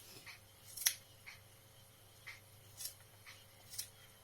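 Scissors snipping slowly through a thick loop of wound woolen yarn: a series of short, faint snips, the loudest about a second in.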